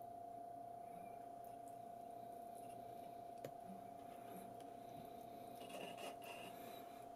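Quiet room tone with a steady thin hum, a single sharp click about three and a half seconds in, and faint small clicks of chopsticks picking up fried tofu from a paper takeaway box near the end.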